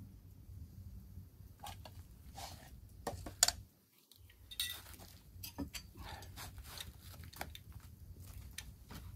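Metal clinks and scrapes of a tin cup and a brass pot being handled, with one sharp knock about three and a half seconds in.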